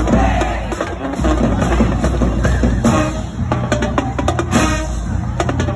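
Marching band playing a pep tune in the stands, driven by a busy drumline with rapid percussion hits, with horns sounding through the beat in the second half.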